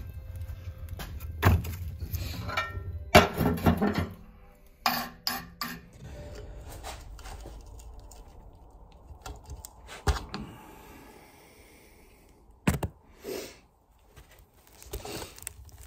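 A screwdriver clinking, tapping and scraping against the metal of a Kawasaki KX250 swingarm's pivot bore while the bearings are pried at, in scattered sharp knocks.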